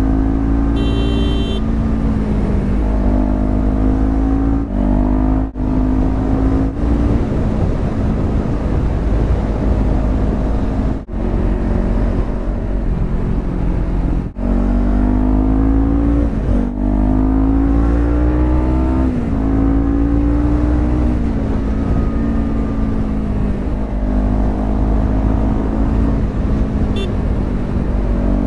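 Sport motorcycle with an aftermarket Yoshimura exhaust being ridden through traffic. The engine note climbs and falls as the bike speeds up and eases off, and dips briefly several times. A short high-pitched beep or horn sounds about a second in.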